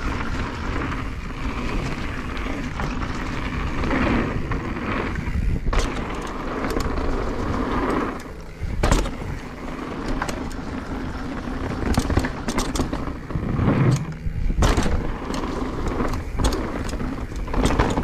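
2022 Nukeproof Dissent Comp mountain bike descending a rough dirt and gravel trail: tyres rumbling over the ground, with repeated sharp knocks and rattles from the bike over rocks and bumps. A short lull about halfway through is followed by a hard knock.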